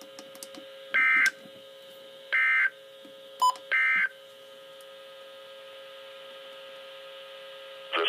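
NOAA Weather Radio Emergency Alert System data tones from a Midland weather radio's speaker: three short, identical warbling bursts about a second and a half apart, the end-of-message code that closes the blizzard warning broadcast. A short click-beep comes just before the third burst, over a steady faint hum.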